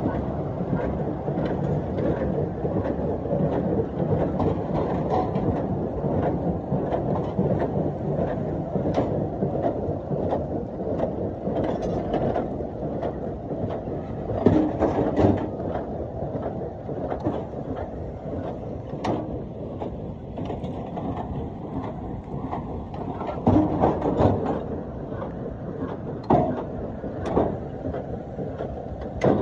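Tractor-drawn New Holland 575 small square baler and 1970s McConnel bale packer working together: a steady mechanical running noise with frequent clicks and knocks of the moving parts. Several louder clanks come about halfway through and again near the end as bales are pushed into the packer.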